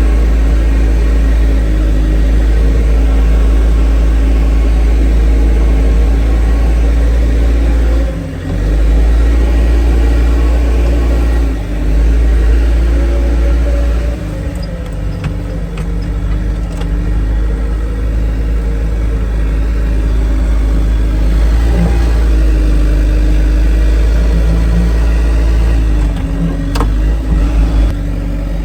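Loader tractor's engine running under load while the bucket scoops muck, its speed rising and falling as it works, with two brief dips about 8 and 11.5 seconds in and a few light knocks near the end.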